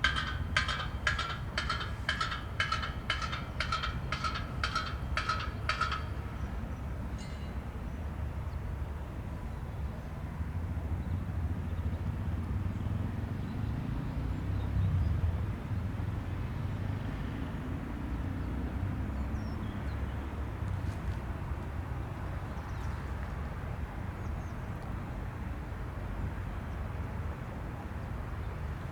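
A low, steady engine rumble, swelling slightly about halfway through, with a quick run of chirps, about three a second, over the first six seconds that then stops.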